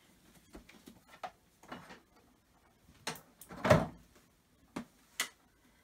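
A Nilfisk 26-21 vacuum cleaner's parts being handled and fitted: scattered clicks and knocks, with a louder knock about three and a half seconds in and two sharp clicks near the end.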